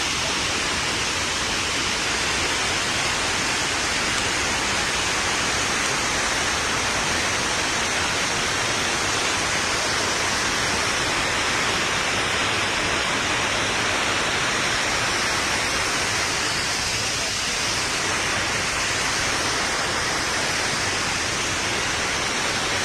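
Mallalli Falls: a large waterfall's rushing, steady roar of falling water.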